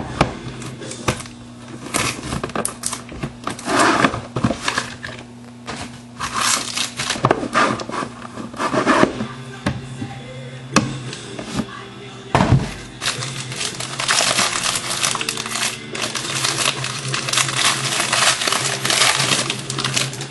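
Wrapping on a sealed box of trading cards being torn open and handled: irregular crinkling and crackling in repeated bursts.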